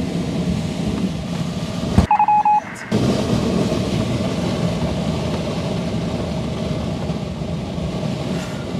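Steady rush of air over a motor glider gliding with its engine stopped and propeller standing still. About two seconds in, a click and a short run of electronic beeps briefly cut through it.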